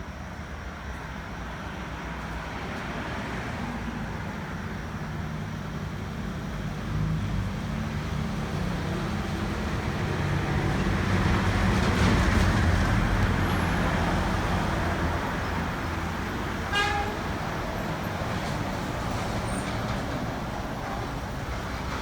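Vehicle engine and road noise that swells to a peak about halfway through and then eases off, as of a vehicle passing close by. About three-quarters of the way in comes a brief chirp falling in pitch.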